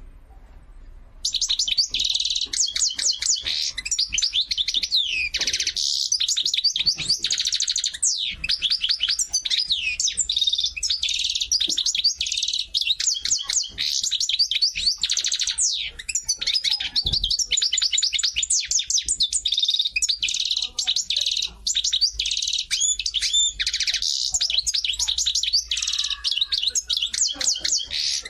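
A small songbird chirping and trilling rapidly and without pause, a fast run of high twittering notes. It starts abruptly about a second in and cuts off suddenly at the end.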